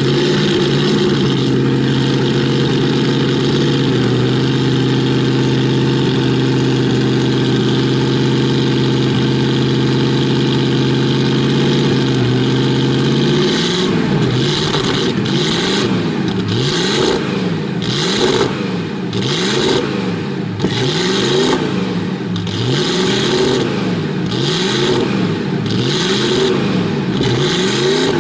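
Maserati 8CM's supercharged 3-litre straight-eight running stationary: a steady, even fast idle for the first half, then blipped over and over, the pitch rising and falling about once a second.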